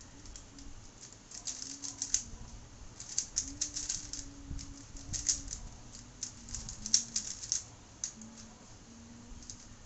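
A 3x3 Rubik's cube being turned fast in a speedsolve: quick flurries of plastic clicking and clacking as the layers snap round, thinning out near the end. A soft hummed tune runs underneath.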